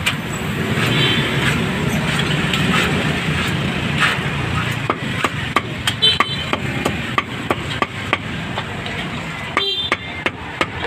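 Meat being chopped with a cleaver in quick, irregular strokes, starting about five seconds in, over street traffic and background voices.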